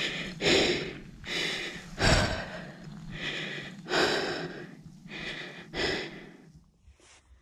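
A person panting hard, short loud breaths about once a second that fade near the end: out of breath from straining to lift a fallen, fully loaded motorcycle in deep sand.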